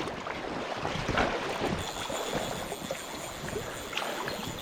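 River water running and splashing around the wading angler, with small scattered splashes.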